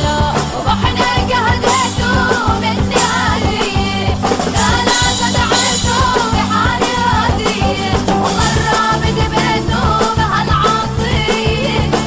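Arabic folk song: a solo singer's voice moving in wavering, ornamented runs over band accompaniment with a steady beat.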